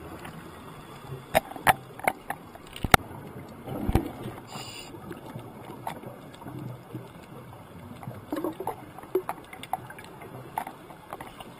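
Underwater sound heard through a GoPro housing on a reef dive: a low rumbling bubbling with scattered sharp clicks and crackles, and a louder bubbling burst about four seconds in.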